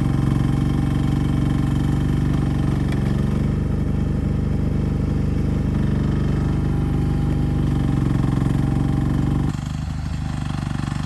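A 1-ton Chinese mini excavator's small engine runs steadily. About three-quarters of the way through, the sound cuts abruptly to a quieter, duller engine sound.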